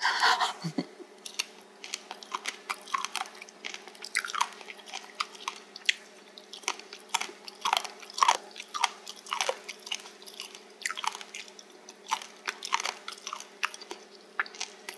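Close-miked chewing of spicy stir-fried pork cartilage (odolppyeo): an irregular run of short crunches and clicks, a few each second, as the gristle is bitten through.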